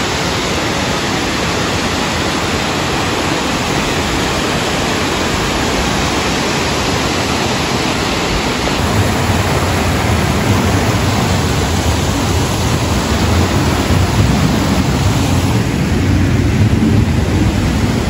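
Loud, steady rush of falling water from a waterfall and the rocky stream cascading below it. A deeper rumble joins in about halfway through.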